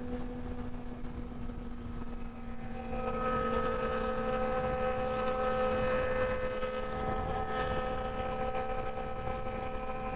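Suzuki GSX-R sportbike's inline-four engine running at a steady highway cruise, with a low wind rumble. About three seconds in the engine note grows louder and gains higher tones.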